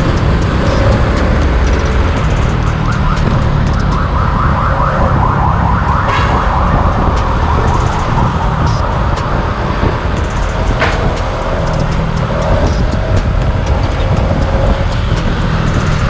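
Honda RS 125 FI's single-cylinder engine running at road speed, under steady wind and traffic noise, picked up by a camera mounted on the moving motorcycle. A high warbling tone rises over and over for a few seconds, starting about three seconds in.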